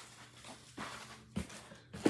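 Quiet handling noise from a plastic mailer pouch and a cardboard box being moved about, with two soft knocks.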